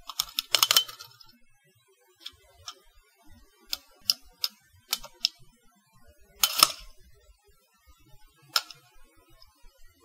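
Tape measure being handled: a quick run of sharp clicks in the first second, single clicks spread through the middle, a short rattling burst a little past halfway, and one more click near the end.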